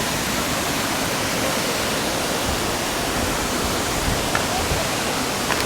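Steady rush of a large waterfall, water pouring and crashing, loud and even.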